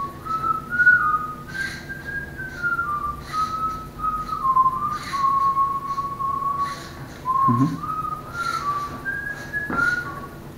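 An interactive robotic chair whistles a wandering tune, a single clear whistle stepping between notes with short glides. Brief scratchy noises come between the phrases, and there is a low knock about seven and a half seconds in as the chair moves.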